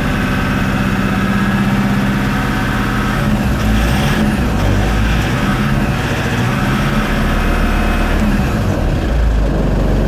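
A Mazda BT-50's 2.5-litre four-cylinder turbo-diesel engine running steadily at a raised speed of about 2000 rpm, then dropping back to idle near the end.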